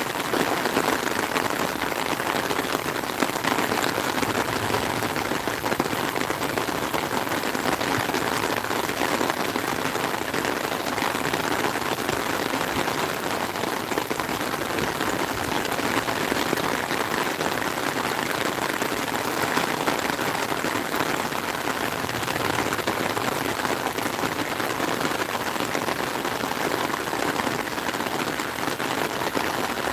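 Heavy rain falling steadily onto open water: a dense, even hiss of countless drops that holds unchanged throughout.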